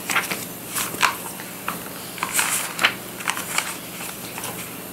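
Pages of a children's picture book being flipped and smoothed by hand: an irregular string of short papery rustles and flicks.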